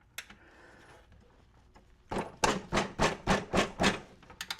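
Socket ratchet working a tight engine mounting bolt on a mower deck: a single click, then about two seconds later a run of sharp metallic clicks, roughly four a second, with a few more near the end as the bolt is worked loose.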